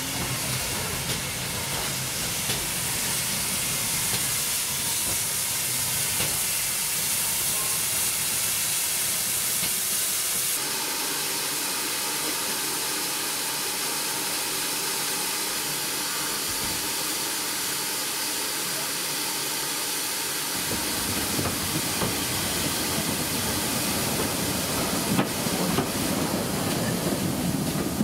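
Steam locomotive letting off steam: a steady hiss throughout, joined in the last several seconds by the heavier rumble of the train moving off.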